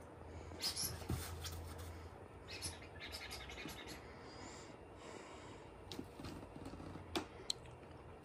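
A corgi shuffling about inside a fabric pop-up play tent: soft rustling of the tent and light taps and clicks, all quiet.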